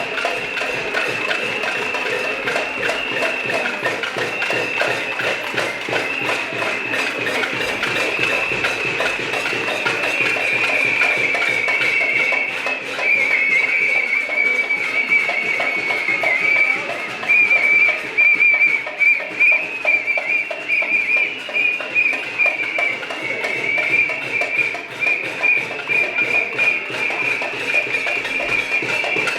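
Protest din of many whistles blown continuously together over the dense, rapid clatter of pots and pans being banged: a cacerolada.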